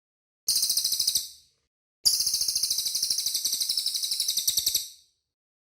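Cililin songbird singing two rapid, high-pitched trills: a short one about half a second in and a longer one of nearly three seconds starting about two seconds in.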